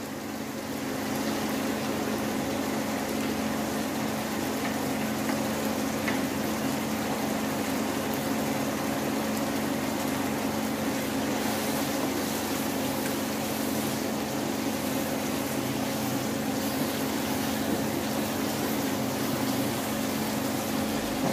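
Chicken pieces in soy sauce and vinegar sizzling and bubbling steadily in a non-stick pan over a gas flame, with a constant low hum underneath.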